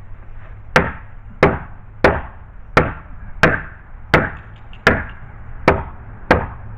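Hammer striking a gate part in a steady series of nine blows, about one and a half a second, each with a short ring, tapping it back into place while it is held under pressure.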